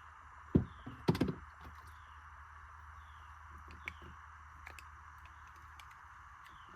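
Metal T-post fence clips snapping onto a steel T-post: two sharp clicks about half a second apart near the start, the second a quick double, then a few faint ticks, over a steady background hiss with a faint falling chirp repeating.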